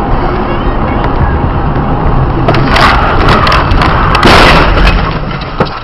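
A car crash heard over loud road and engine rumble from a moving car: a cluster of bangs and cracks about two and a half seconds in, then a longer, louder crunching impact about four seconds in.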